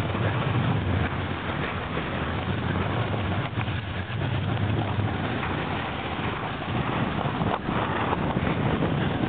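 Wind buffeting the microphone in a steady low rumble, over the hiss of a snowboard sliding across snow as the rider moves down the slope.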